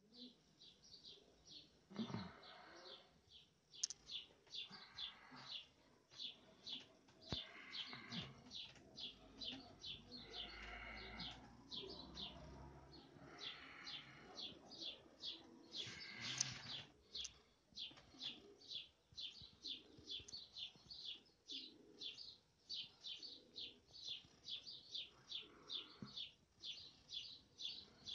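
Faint, fast and even chirping, about three short high chirps a second, with a few lower calls now and then and one louder call about sixteen seconds in.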